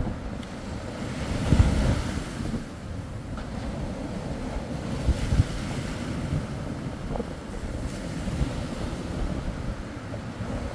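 Surf breaking on the beach with wind buffeting the microphone, with strong gusts about a second and a half in and again around five seconds in.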